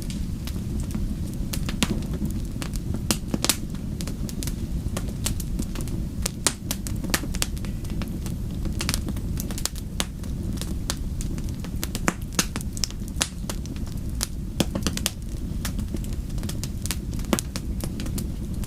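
Fireplace fire crackling: a steady low rumble of burning with frequent, irregular sharp pops and snaps.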